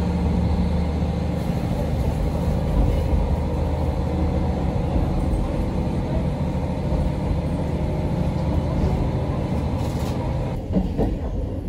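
Diesel railcar running, heard from inside the passenger cabin: a steady low engine drone mixed with rolling wheel noise on the rails. The sound shifts a little about ten seconds in.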